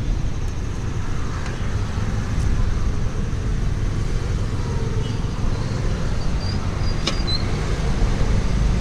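Steady street traffic rumble, with one short click about seven seconds in.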